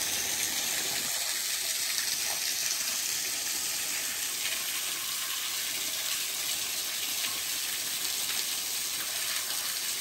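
Small waterfall: thin streams of water falling over a rock ledge and splashing onto the rocks below, a steady hiss.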